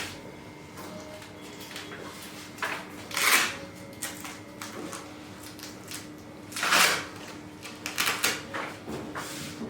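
Short rustling and sliding sounds with a few light knocks, as of a person shifting and being repositioned on a treatment table. The loudest rustles come about three and seven seconds in.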